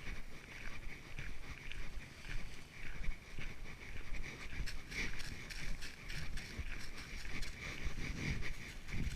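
Footsteps on a walking trail at an even pace of about two steps a second, with a dog panting as it walks alongside.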